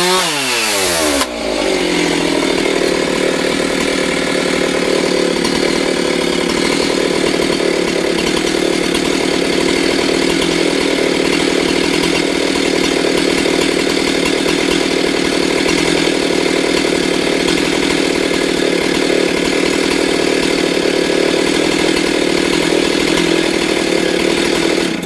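Husqvarna 372 XP two-stroke chainsaw: the engine revs fall sharply in the first second, then it runs steadily at a lower, even pitch and cuts off suddenly at the end.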